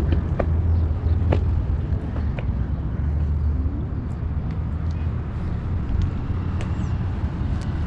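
Outdoor ambience: a steady low rumble with a few light clicks scattered through it.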